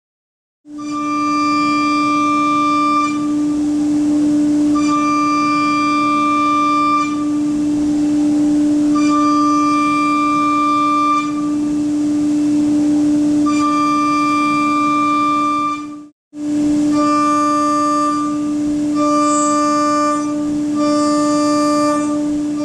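Walter MC275 four-flute ceramic end mill spinning at about 17,800 rpm and milling Inconel 718: a steady mid-pitched tone from the spindle, with a shrill whine about four times higher that sounds only while the cutter is in the metal, in passes of two to three seconds. After a short break about 16 seconds in, the whine comes in shorter stretches about every two seconds as the mill plunges.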